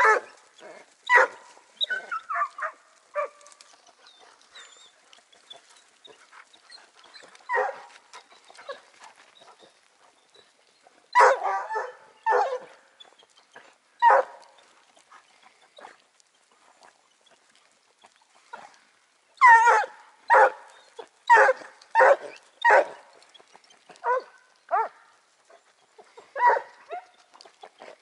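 Hunting hounds baying as they trail a hare: short barks in irregular clusters with pauses of a few seconds between, coming thickest about two-thirds of the way in.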